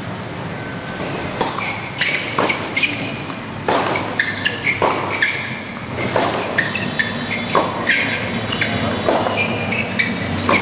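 Tennis rally on a hard court: racquets striking the ball and the ball bouncing, a sharp crack every second or so.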